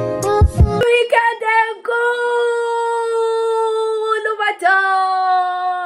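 Intro music with drum hits cuts off about a second in; then a woman sings unaccompanied, holding two long notes.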